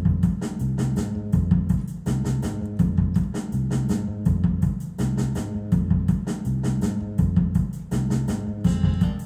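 Notation-software playback of a transcribed Afrobeat groove: only the bass line and a drum-kit pattern of kick and snare play, repeating in a tight, looping figure.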